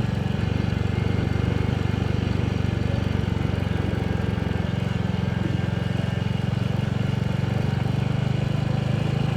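A vehicle's engine running at a steady speed while travelling along a road, a low even drone.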